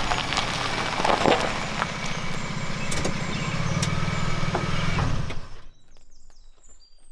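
Toyota pickup truck's engine running, with scattered crunches and clicks of gravel. It cuts off abruptly about five and a half seconds in, leaving a much quieter stretch with faint high tones.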